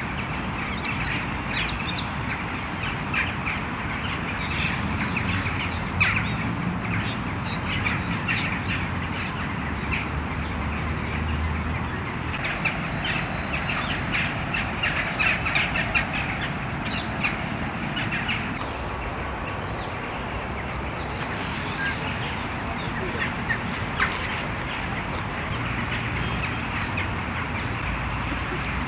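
Outdoor ambience of birds calling, with crow-like caws and short sharp calls scattered throughout, over a steady low background rumble.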